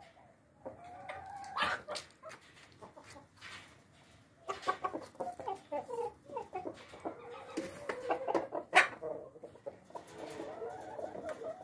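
Chickens clucking in low, repeated calls, with a few sharp taps; the loudest tap comes about three-quarters of the way through.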